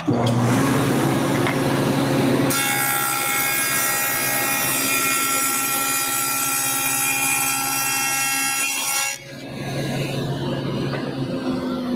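Table saw with a stacked dado head switched on and running. From about two and a half seconds in to about nine seconds it cuts a test dado across a board, a dense high whine over the motor. The cut ends abruptly and the saw runs free for a moment.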